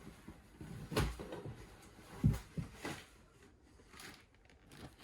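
Cardboard model kit boxes being handled and set down: a few soft thumps, the clearest about a second in and just past two seconds, with rustling between.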